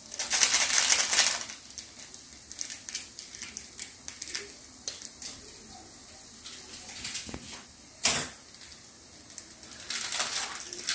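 Cooking handling sounds: a steel slotted spoon clinking and scraping in an aluminium kadai of thick masala, with small plastic spice sachets rustling as they are emptied into it. A loud rustling scrape in the first second or so, scattered light taps after it, and one sharp knock about eight seconds in.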